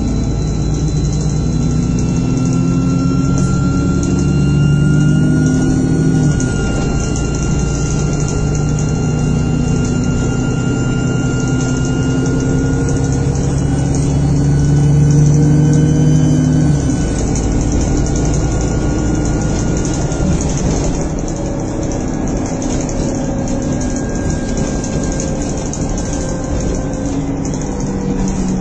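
Bus engine and drivetrain heard from inside the saloon while under way: the engine note climbs, steps back about six seconds in, climbs again, then eases off about seventeen seconds in, with a thin steady whine above it.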